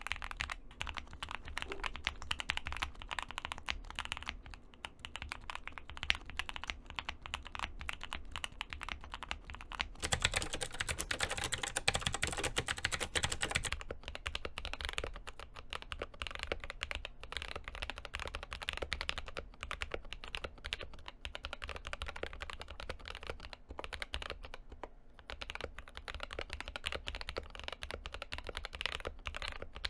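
Continuous typing on a mechanical keyboard, a rapid stream of key clicks and thocks, with a louder, denser stretch of about four seconds starting about ten seconds in.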